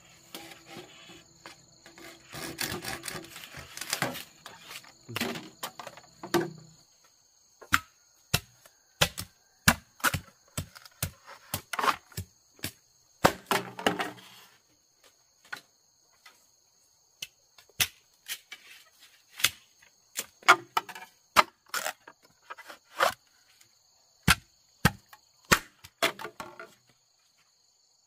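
Irregular sharp knocks of a tool striking bamboo, about one or two a second, with stretches of scraping at the start and near the middle. Insects chirr steadily in the background.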